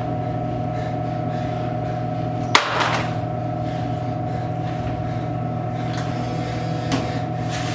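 A steady hum with a low tone and a higher tone held throughout, broken by one sharp click about two and a half seconds in.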